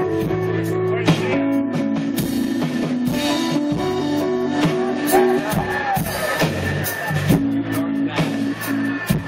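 Live rock band playing a slow song: electric guitars holding chords over a drum kit, heard from among the audience in a large hall.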